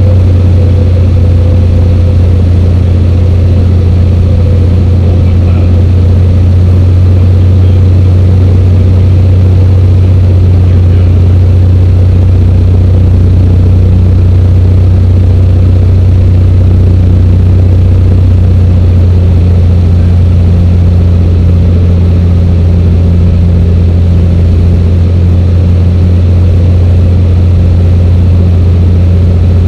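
Single-engine light aircraft's engine and two-blade propeller heard from inside the cockpit: a loud, steady low drone that holds even throughout.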